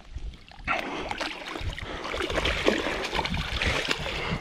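A hooked European carp thrashing and splashing in shallow muddy water at the bank's edge as it is landed, starting just under a second in and going on in a dense run of splashes.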